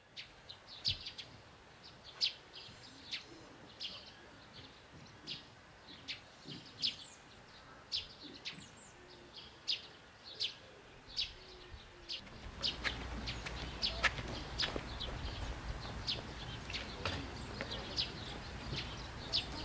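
Small birds chirping: short, high chirps repeating irregularly about once or twice a second over quiet outdoor background. About twelve seconds in, a louder low rumble comes up underneath.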